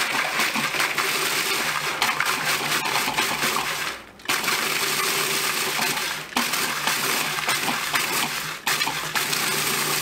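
Food processor pulsing hard vanilla wafers, the motor humming under the clatter of cookie pieces being chopped and thrown against the plastic bowl. The run is broken by short pauses between pulses, about three times, as the wafers break down to coarse crumbs.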